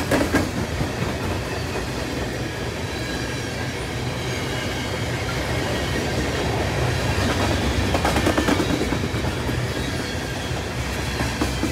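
Freight train cars rolling past on jointed track: a steady rumble with groups of wheel clicks. The clicks come near the start and again, loudest, about eight seconds in.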